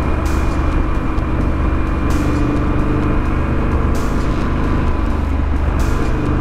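Triumph Scrambler 900's parallel-twin engine running at a steady cruise through its Vance & Hines exhaust, under a constant rush of noise. A brief hiss recurs about every two seconds.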